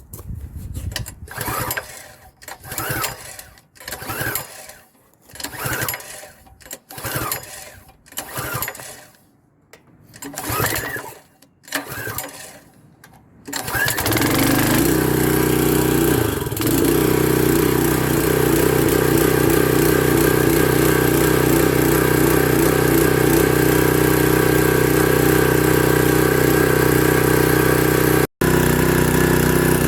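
Briggs & Stratton engine on a Husqvarna PW3200 pressure washer being cranked by its recoil pull cord on choke: about ten pulls roughly a second apart. It catches about 14 seconds in and settles into a steady run for its first start.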